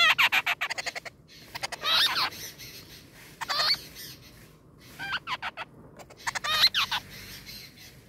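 Songbird nestlings calling to beg from the nest in five bursts of rapid, harsh, chattering notes, with short pauses between them.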